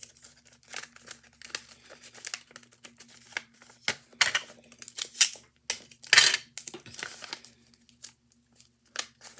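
Adhesive tape being pulled off the roll and torn, with paper and tape crinkling as it is wrapped around the folded paper; irregular rustles and rips, the loudest a little past the middle.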